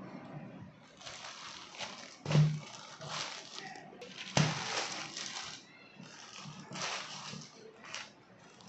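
Plastic courier mailer bag crinkling and rustling as it is handled, with two sharp knocks about two and four seconds in.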